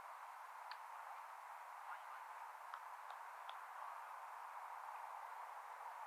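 Faint steady hiss of background noise, with a few faint, short high chirps in the first half.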